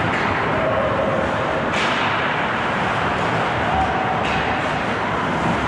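Ice hockey rink ambience during play: a steady wash of arena noise with faint distant voices, and two short sharp sounds on the ice about two and four seconds in.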